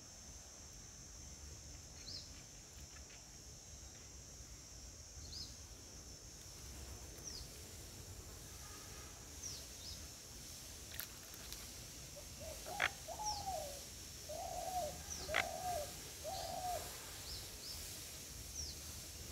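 Birds calling: a short, high, falling chirp repeats every couple of seconds over a steady high drone, then from about twelve seconds in a run of five or six louder, lower calls with a few sharp clicks among them.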